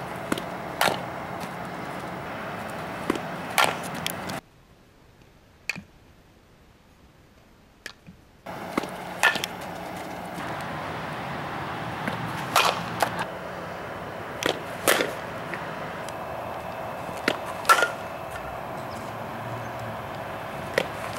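Softball bat striking pitched softballs: about eight sharp cracks, one every two to three seconds, over steady outdoor field noise.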